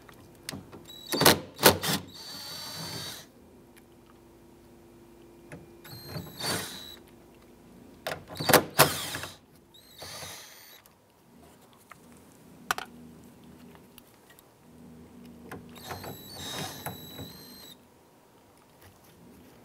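Cordless impact driver with an 8mm socket on an extension, running in several short bursts as it backs out the bolts holding a side mirror to the door.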